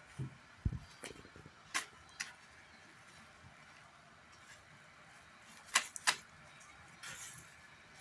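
Gloved hands picking over fresh stinging nettles in a plastic bowl: scattered rustles and sharp crisp clicks, the loudest pair about six seconds in, with a couple of low soft knocks near the start.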